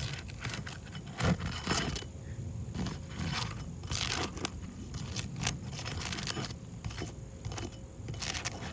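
Metal snake tool (shingle nail-removal bar) scraping and clicking under a three-tab asphalt shingle as it is worked in toward a nail, in irregular strokes.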